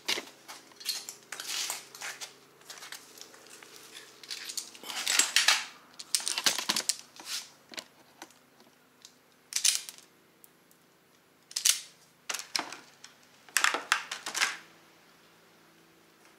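Hand tools working on an ATV's headlight mount as a set screw is tightened: a string of irregular scrapes, clicks and rattles, the loudest about five seconds in and a cluster near the end, over a faint steady low hum.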